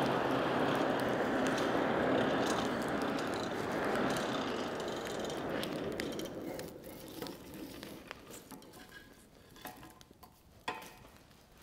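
Forge blower driving air into the coal forge fire: a steady rushing with a low hum that fades away over several seconds, leaving faint crackles and ticks from the burning fire.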